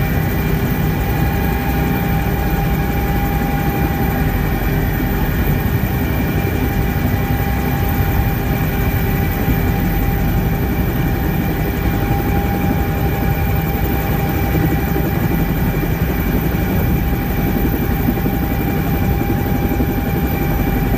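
Bell 230 helicopter's twin turbine engines and rotor running steadily on the helipad. A loud, even rumble with a steady whine, no change in pitch or loudness.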